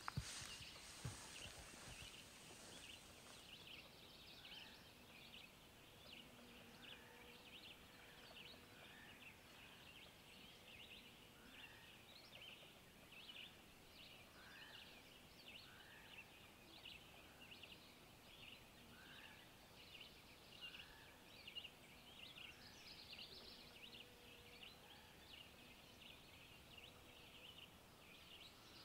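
Faint dusk wildlife chorus: a dense, steady chirring of many small high-pitched callers, with a clearer call repeated about once a second over it. A single knock right at the start.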